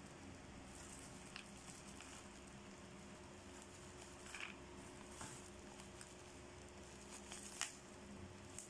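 Faint crinkling and crackling of plastic bubble wrap being handled, a few scattered crackles with the sharpest near the end, over a low steady hum.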